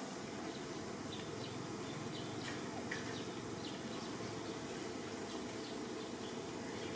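Steady outdoor background noise with a few faint, short chirps about two to three seconds in.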